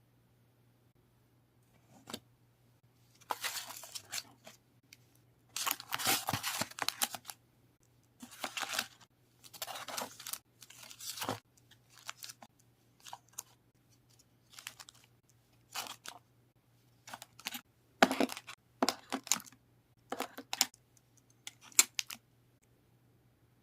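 Paper tearing and crinkling in a series of short, irregular bursts, with light taps in between.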